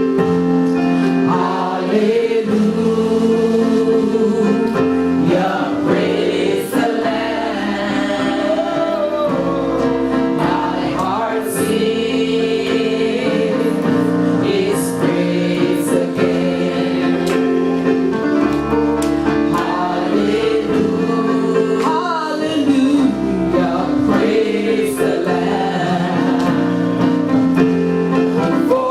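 Gospel music: a choir singing over sustained instrumental chords, with a steady beat of light percussion.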